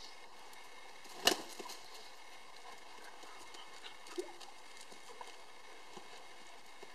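A terrier and a rooster scuffling together on concrete: scattered light taps and scrapes of feet and claws over a faint steady hiss, with one sharp knock about a second in and a brief low call about four seconds in.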